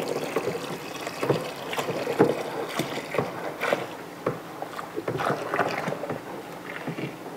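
Tap water pouring into a plastic bucket of foaming liquid while a plastic stick stirs it, sloshing and splashing at irregular moments.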